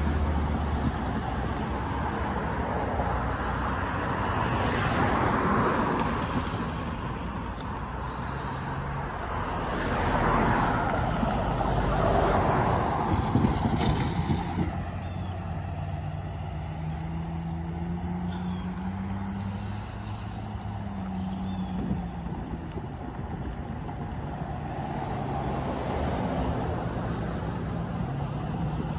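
Road traffic passing: cars and a pickup truck going by one after another, tyre and engine noise swelling and fading, with the louder passes about five seconds and ten to thirteen seconds in. A low engine drone rises and falls in pitch a little past the middle.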